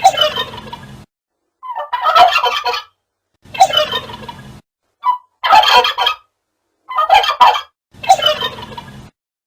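Male turkey gobbling: six gobbles, each about a second long, with brief silent gaps between them.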